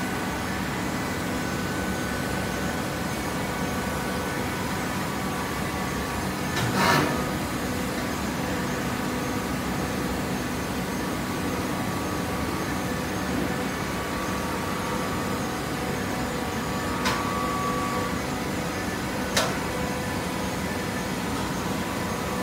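Horizontal hydraulic baler running: a steady machine hum with several constant tones from its motor and hydraulic pump. A louder clank comes about seven seconds in, and two short, sharp knocks come later.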